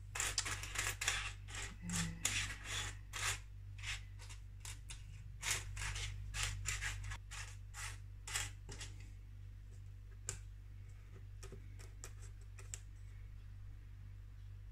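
Thin metal alphabet dies clinking and scraping together as a hand rummages through a pile of them, with many quick clicks for the first nine seconds or so, then only a few scattered clicks as letters are picked out and set down on card.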